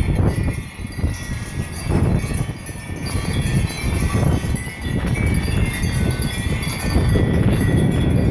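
Wind chimes on a welded stainless steel sculpture ringing in the wind, with overlapping high metallic tones, over heavy wind rumble on the microphone.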